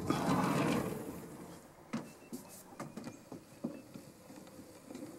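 A burst of rustling from a handheld camera being moved, then scattered light taps and knocks of footsteps, about one every third of a second at irregular spacing.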